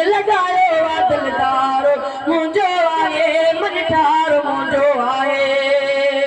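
A young man's voice singing a Sindhi devotional naat (molood) into a microphone, with winding melodic runs over a steady held low note.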